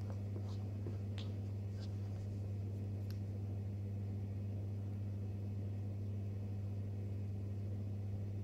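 Steady low electrical hum, with a few faint ticks in the first three seconds.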